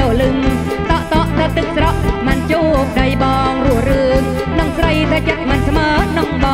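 Khmer Surin kantrum music with a steady, heavy drum beat under a wavering lead melody.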